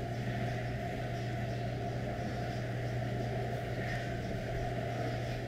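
A steady low hum under an even background hiss.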